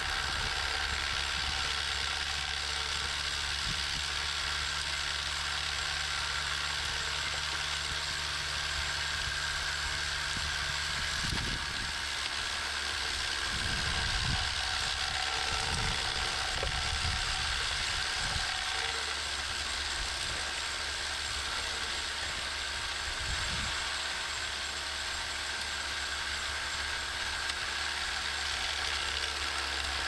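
Scale RC vibrating screener running: a steady rattling mechanical whir from its small vibration motor and conveyor drive, with soil and stones rattling over the perforated screen deck. A few dull low thumps come about midway.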